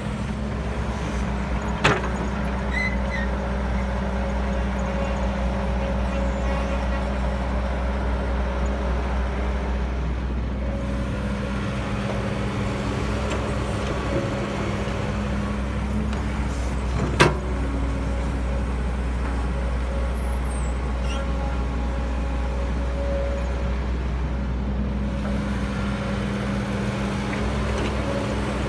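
Caterpillar E315B hydraulic excavator's diesel engine running steadily under work, with two sharp metallic clanks, one about two seconds in and a louder one around seventeen seconds in.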